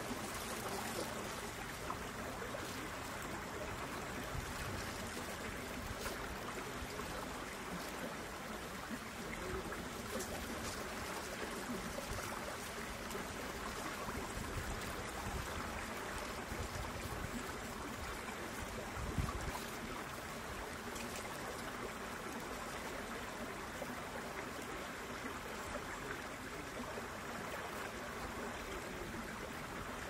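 Steady rush of flowing water, with an uneven low rumble underneath and a single thump about nineteen seconds in.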